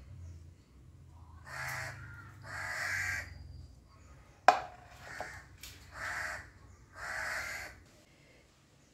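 A crow cawing about five times, each short harsh caw a second or so apart, with one sharp click about halfway through.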